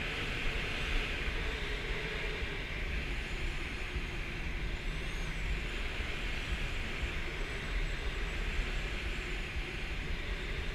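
Steady rush of air over the canopy and airframe of an unpowered ASK 13 two-seat glider in flight, with a low rumble. A faint high whistle rises and falls briefly about halfway through.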